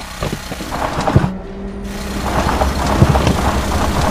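Heavy drilling-machine sound effect: a steady motor hum under rumbling and grinding, with irregular sharp knocks, growing louder as the tunnel-boring drill approaches the tunnel mouth.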